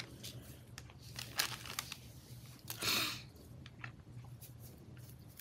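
Soft rustling and crinkling of lace and ribbon trims being handled and sorted, with scattered small clicks and a brief louder rustle about three seconds in.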